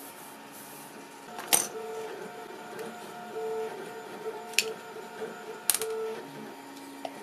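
3D printer's stepper motors whining in steady tones that keep stepping between pitches, a printer at work. Three sharp clicks of hard plastic parts being handled on a workbench stand out, about a second and a half in, near the middle and a little later.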